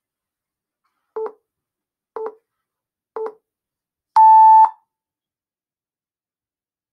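Countdown timer beeping at the end of its count: three short, lower beeps a second apart, then one longer, higher beep at zero.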